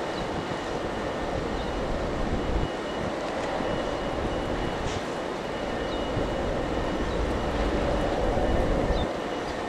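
Steady low rumble of a large RORO cargo ship's engines passing close by as it gets under way, with wind buffeting the microphone.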